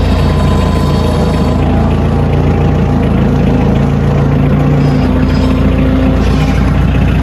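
Engine of a piece of heavy equipment running steadily, its pitch shifting about five seconds in as the engine speed changes.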